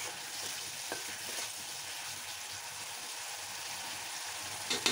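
Amaranth stems and spice paste sizzling in oil in a kadai while a metal spatula stirs through them. A faint click comes about a second in, and a sharper knock of the spatula on the pan comes just before the end.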